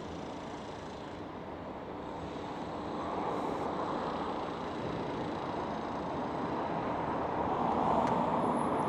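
Steady rushing outdoor background noise, like distant road traffic, slowly growing louder.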